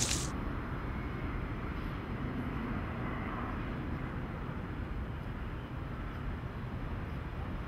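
Steady, low outdoor background rumble with no distinct events, picked up by the camera's microphone.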